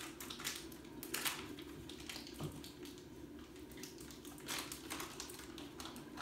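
Faint rustling and a few light taps as a stick of butter is handled and unwrapped on a cutting board, over a low steady hum.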